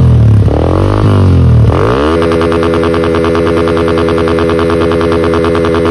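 Yamaha Sniper 150's single-cylinder engine through an aftermarket SMOK power-pipe exhaust, revved in three quick throttle blips. About two seconds in it climbs and is held at the rev limiter for about four seconds with a rapid, even stutter, then drops back near the end.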